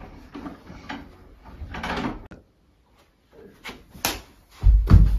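A wooden door shutting, with knocks and shuffling around it; after a brief cut to silence, a few sharp knocks and one heavy thump near the end.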